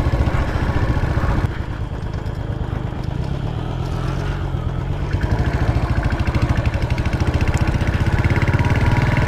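Motorcycle engine running while riding, with a rapid, even beat of firing pulses. It eases off about a second and a half in, then builds again.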